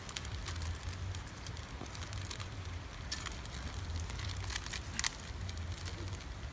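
Small fire of dry leaves and twigs crackling, with scattered sharp pops and one louder snap about five seconds in, over a low steady rumble.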